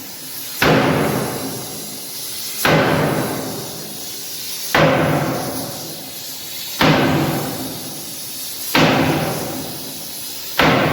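Heavy hammer blows on steel, six evenly spaced strikes about two seconds apart, each ringing on and fading before the next, as the blade is hammered during repair.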